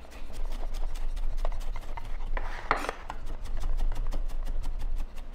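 Chef's knife mincing garlic on a wooden cutting board: blade taps against the board, uneven at first, then a fast, even run of chops from about three seconds in.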